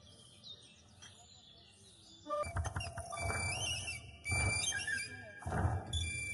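High chirping, whistle-like tones that glide up and hold, joined about two seconds in by loud low rumbling surges.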